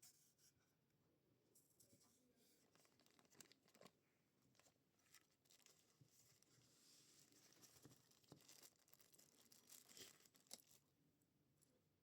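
Faint rustling and crinkling of packaging being opened and handled, with scattered small clicks and taps.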